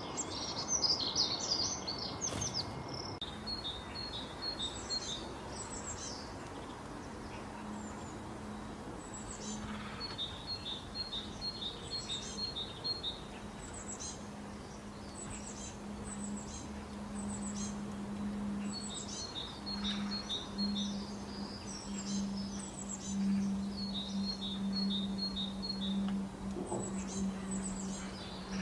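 Wild birds calling: runs of quick, repeated short chirps alternating with high, sharply falling notes, over a steady background hiss and a low hum that sets in about eight seconds in.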